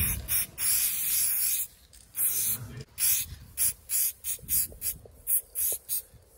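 Aerosol spray paint can hissing in on-off bursts: a few longer sprays, then many short quick bursts in the second half.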